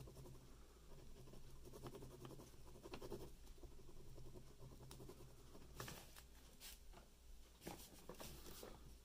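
Pen scratching on paper in soft doodling strokes, with a few quicker, sharper strokes in the second half.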